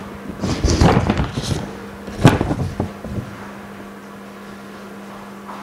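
Cotton pad scrubbing across the glass face of an iPhone 6S LCD panel to clean off residue, with a sharp knock about two seconds in and a few lighter knocks after it. A steady low hum runs underneath.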